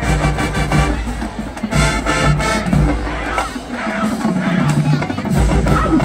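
Marching band playing: brass with sousaphones over a drumline with repeated low bass-drum hits.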